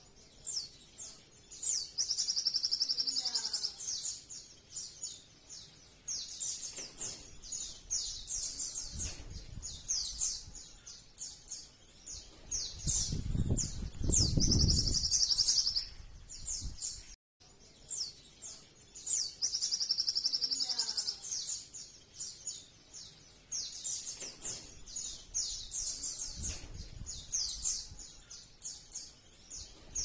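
A sogon (a small sunbird) singing: rapid runs of high, sharp chirps and fast trills with barely a pause, including a longer buzzing trill twice. A low rumble comes in about halfway through.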